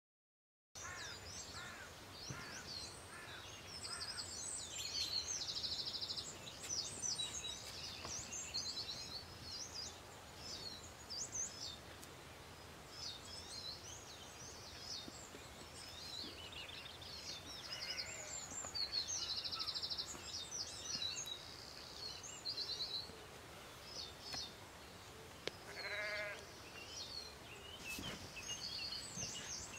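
Outdoor birdsong: several birds chirping and trilling throughout, with a sheep bleating once near the end, followed shortly by a single sharp click.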